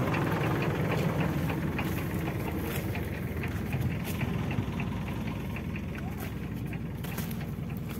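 Mahindra 475 tractor's diesel engine running with a steady low rumble and a light, regular ticking, slowly growing fainter.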